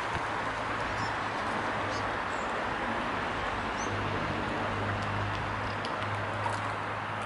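Steady outdoor ambience of wind and rippling lake water, with a few faint high bird chirps and a low steady hum that grows louder about four seconds in.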